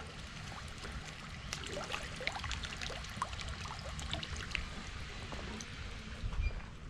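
Water dripping and trickling, with small plops and light scattered clicks.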